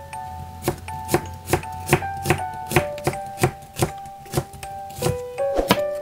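Chef's knife slicing a green onion on a plastic cutting board, about two strokes a second, over light background music.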